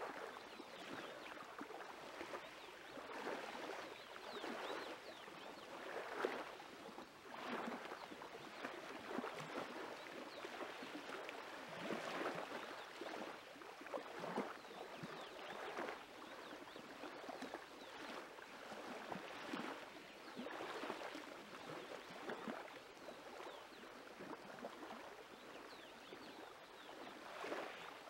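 Small lake waves lapping at the shore, faint, in uneven swells every second or two.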